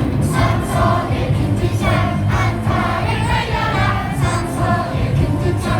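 A stadium crowd of baseball fans singing a cheer song together in unison, many voices at once.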